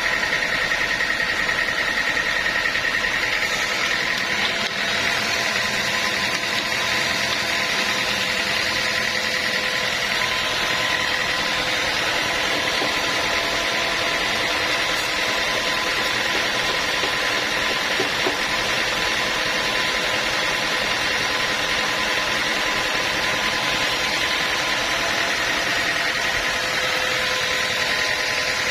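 Sawmill machinery running steadily: a constant loud mechanical drone with a steady high whine that holds throughout.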